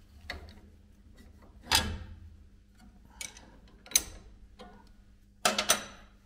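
Clicks and knocks of a wrench and the steel riving knife of a table saw as the knife is loosened and set back: several separate knocks, the loudest about two seconds in and a quick cluster near the end.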